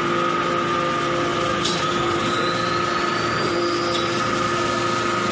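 Metal swarf briquetting press running: a steady hydraulic pump and motor hum with a constant whine over it. A single sharp click comes a little under two seconds in.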